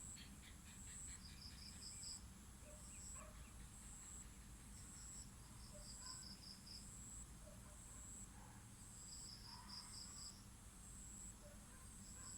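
Faint insect chirping, crickets by the sound of it: a high chirp repeating about twice a second, with short trills now and then, over a low steady hum.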